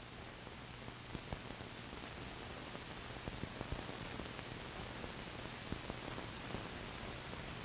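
Steady soundtrack hiss with a low mains-like hum and scattered faint clicks, the background noise of an old film's optical or magnetic soundtrack between narration.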